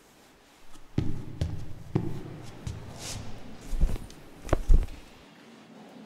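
Foley footsteps across a stage floor, spaced about one to two a second, followed about four and a half seconds in by a couple of louder thumps as the player settles at the piano.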